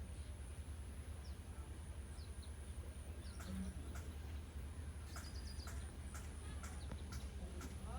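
Birds chirping in short, high, falling notes over a steady low rumble, with a quick run of ticks about five seconds in and a few sharp clicks in the second half.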